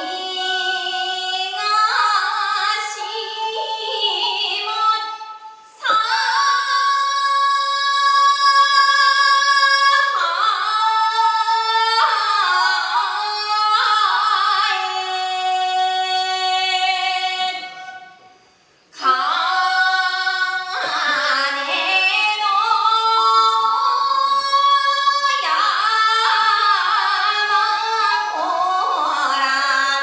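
A woman singing a Japanese min'yō folk song into a microphone, holding long notes with wavering, ornamented turns. She breaks off twice for breath, about six seconds in and just past halfway.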